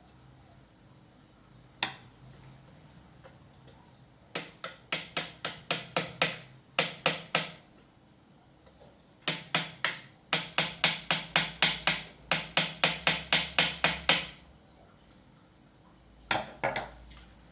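Hammer tapping in two long runs of sharp knocks, about four a second, with a single knock before them and a short group near the end.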